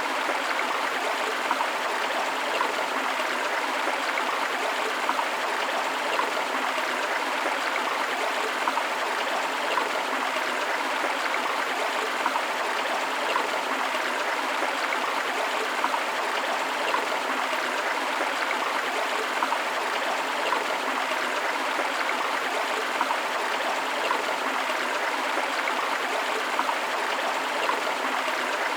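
Forest river flowing: a steady rush of water with small splashes and gurgles throughout.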